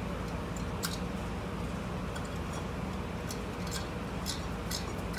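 Small metallic clicks of pliers gripping and working a rusted, seized fitting on a brake caliper: one click about a second in and a run of clicks in the last couple of seconds, over a steady low hum.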